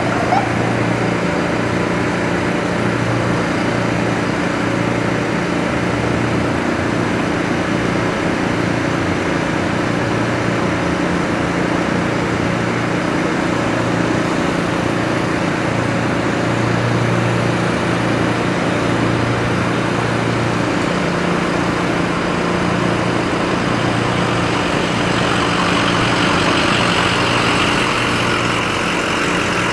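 Fire apparatus diesel engine idling steadily with a low hum, a little more hiss coming in near the end.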